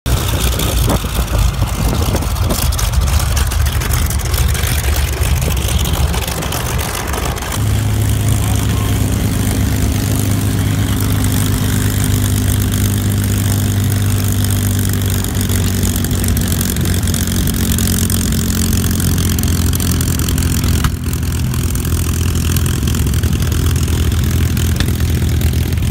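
Vintage piston-engine fighters taxiing at idle. First a Grumman F8F Bearcat's radial engine, then from about 7 s in a steady, loud low hum from a P-51D Mustang's V-12 engine idling close by.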